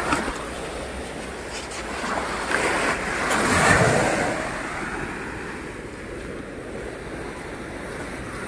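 Sea waves on the shore: a steady wash of surf, with one wave swelling up, breaking about three to four seconds in and fading away.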